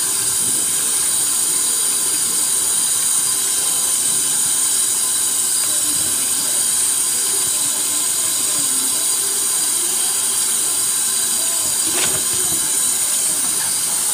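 Kitchen tap running steadily into a stainless steel sink, the water splashing over seafood being rinsed by hand in a plastic colander, with one sharp click near the end.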